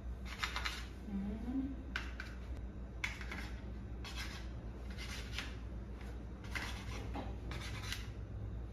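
A knife cutting slices of sandwich bread into cubes on a plate. It makes a series of short scraping strokes, about one every second, as the blade saws through the bread against the plate.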